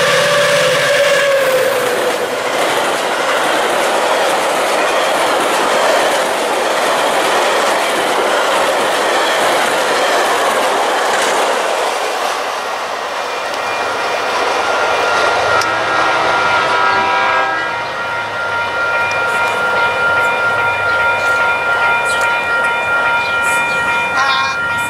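Metra commuter train led by an F40PH diesel locomotive: its horn chord sounds and ends about two seconds in with a drop in pitch, then the bi-level coaches rumble and clatter past on the rails. In the latter part, steady high ringing tones sound over the train noise.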